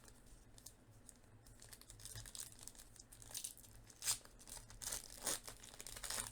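Trading-card pack wrappers and cards being handled: quiet crinkling and tearing that grows busier about two seconds in, with a few sharper crackles.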